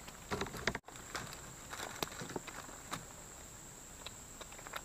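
A steady high insect drone, crickets, runs throughout, with scattered rustles and small clicks from handling line, bait and undergrowth. The rustles are loudest in the first second.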